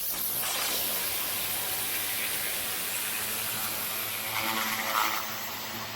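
Petrol pressure washer jet spraying patio paving: a steady, loud hiss with the engine's low hum underneath, briefly louder about four to five seconds in.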